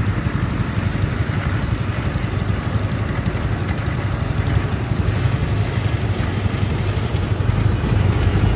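Engine of farm machinery working a rice field, running steadily with a low drone.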